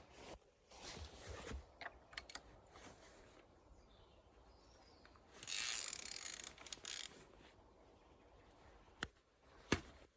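Ratchet wrench and socket working on the Opel Corsa's plastic oil filter housing cap: scattered clicks and handling noises, a denser noisy stretch about halfway through, and two sharp clicks near the end.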